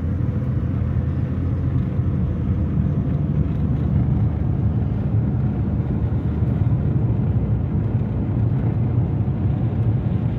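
Steady engine and road rumble inside the cabin of a moving car.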